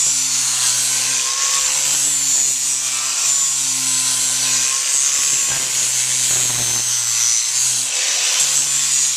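Electric power grinder running steadily against a horse's hind hoof wall, grinding off excess length: a rasping hiss over a steady motor hum that dips briefly now and then as the pressure changes.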